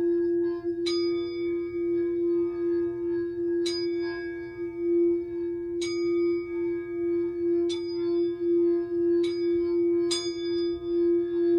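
Singing bowl sounding a steady, slightly wavering low hum, struck six times at irregular intervals of one to three seconds. Each strike adds bright, higher ringing overtones that slowly fade.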